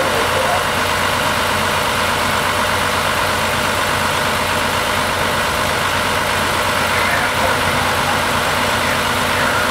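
Pierce fire engine's diesel engine idling steadily, a constant low hum under an even, unchanging wash of noise.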